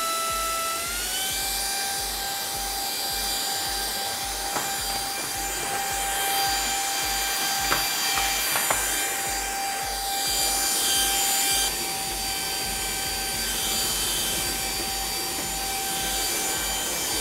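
Proscenic P9 cordless stick vacuum running: a steady high motor whine over the hiss of suction, its pitch stepping up about a second in. A few faint clicks along the way.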